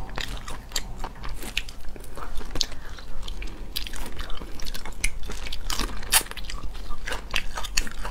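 Close-miked crackling and crunching of cooked shrimp shells being peeled and bitten, with chewing: a steady run of sharp, irregular crackles.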